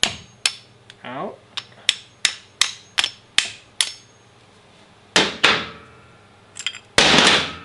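A small hammer tapping the end of a T-handle hex key used as a drift, knocking the pad retaining pin out of a motorcycle front brake caliper: about ten sharp metallic taps, two or three a second, over the first four seconds. Two louder, longer clattering noises follow in the second half.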